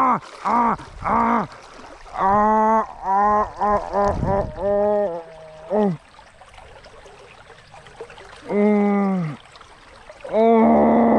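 A voice making repeated wordless, pitched sounds, each about half a second long and dipping slightly at the end. They come in runs: three quickly at the start, about five in a row over the next few seconds, then after a pause one more and a longer one near the end.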